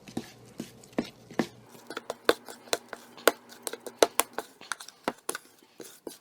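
A utensil stirring a thick icing-sugar glaze in a bowl, knocking and clicking against the bowl in an irregular run of sharp taps, several a second.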